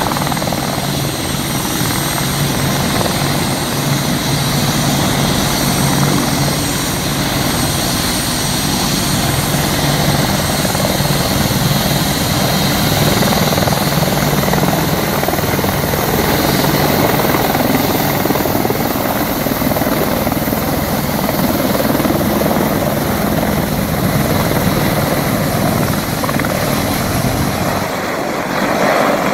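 AH-64D Apache attack helicopter lifting off and hovering low, its rotor and twin turboshaft engines running loud and steady.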